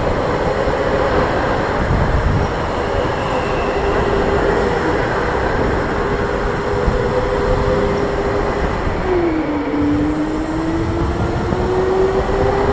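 Electric go-kart motor whining at a steady pitch under way, over a constant rush of tyre and air noise. About nine seconds in the whine drops in pitch as the kart slows, then climbs back gradually as it speeds up again.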